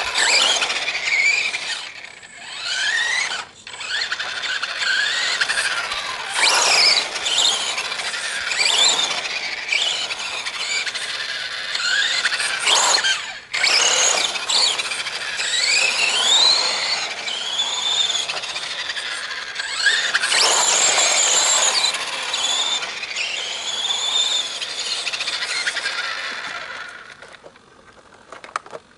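Radio-controlled scale model car's drive motor and gears whining, the pitch rising and falling over and over as it speeds up and slows down. It fades away near the end.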